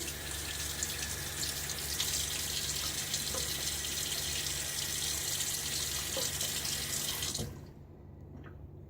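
Water tap running steadily for about seven seconds, then shut off, drawing water to add to the shaving lather.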